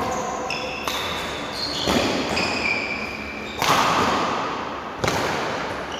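Badminton rally: rackets striking the shuttlecock four times, about one to one and a half seconds apart, the hardest hit about halfway through. Short high squeaks of sports shoes on the wooden court floor come between the first hits.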